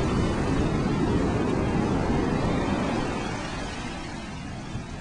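Steady low rush of surf and wind on the microphone, easing off about three seconds in.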